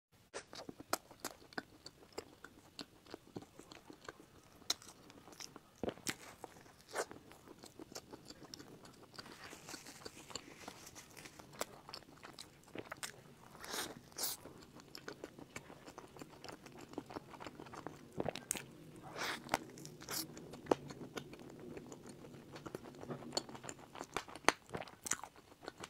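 A person biting and chewing a flaky, crusty pastry sandwich: many sharp crunches and crackles of the crust with chewing in between.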